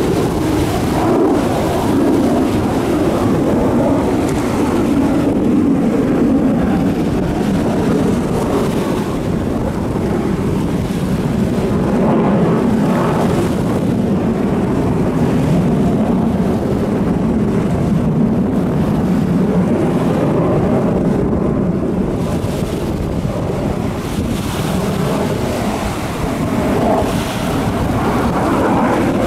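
Distant jet aircraft engine noise, a steady rumble that swells and eases slowly, mixed with wind on the microphone.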